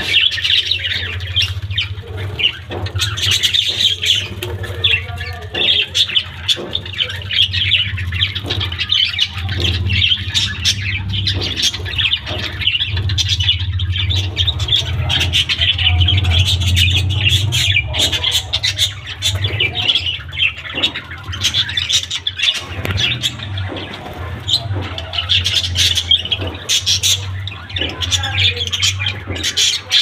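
A flock of budgerigars chattering continuously, a dense mix of many short, sharp calls and clicks, over a steady low hum.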